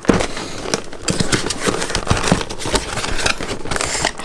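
Cardboard figure box being opened by hand and its clear plastic inner tray slid out: scraping and rustling of cardboard and plastic, with many small clicks and taps.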